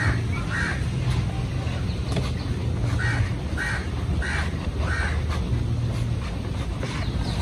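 A bird calling with about six short calls in the first five seconds, over a steady low rumble.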